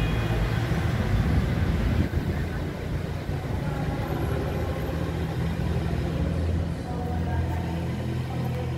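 City street traffic: vehicle engines running with a steady low hum, which drops somewhat about two seconds in.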